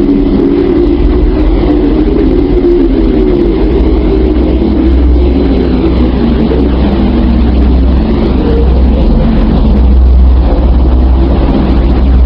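Space sonification: spacecraft-recorded electromagnetic signals from a planet converted into sound, heard as a loud, dense, steady rumbling drone with a wavering hum above it.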